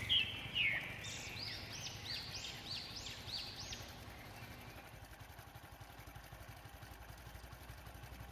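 A bird calling: a short chattering burst, then a run of about six rising-and-falling notes, about two a second, which stops about four seconds in. Under it runs the low steady drone of vehicle engines on the road.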